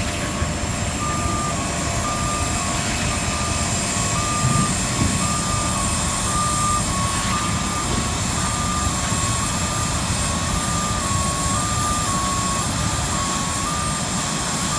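Electronic warning beeper of airport ground equipment sounding a steady repeating pattern of short tones that alternate between two close pitches, over a steady mechanical rumble with a faint high whine.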